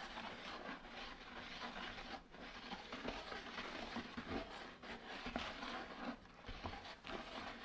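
Faint, irregular scraping of a wooden stick stirring thin-set mortar in a plastic 5-gallon bucket, working it against the sides and bottom to break up dry powder.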